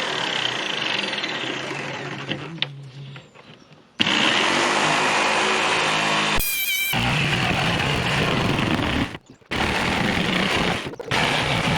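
Electric power saw cutting through plywood, heard in several short stretches: it winds down and stops about two and a half seconds in, then starts again abruptly and cuts out briefly a few more times.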